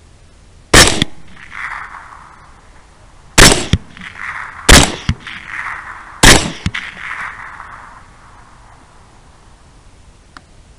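Four rifle shots spaced one to two seconds apart, each followed by a fading echo.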